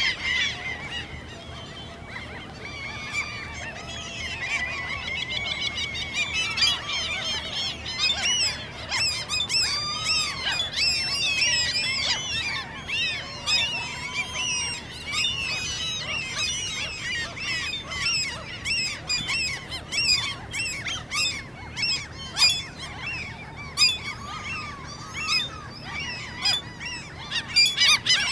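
Common gulls giving high, squeaking begging calls during courtship, several birds overlapping in quick, wavering notes; the calls grow denser after the first few seconds.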